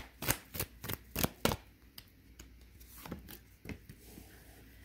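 Deck of oracle cards being handled on a table: a quick run of sharp slaps and clicks in the first second and a half as the cards are shuffled and laid down, then a few fainter taps.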